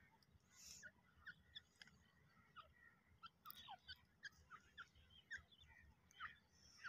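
Faint, scattered short bird chirps over near silence.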